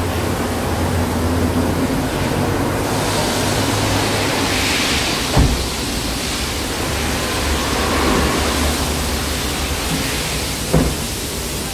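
Steady rushing hiss of compressed air from a car-wash air hose cleaning a car's interior, brightening about three seconds in, over a low hum. Two dull thumps, about five and eleven seconds in.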